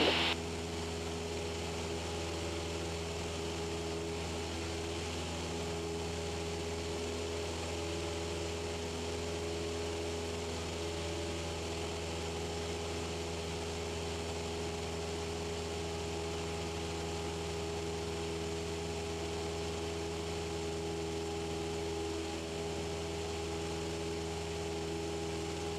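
Cessna 172's engine and propeller at full climb power, a steady drone with several even hum tones, heard through the headset intercom.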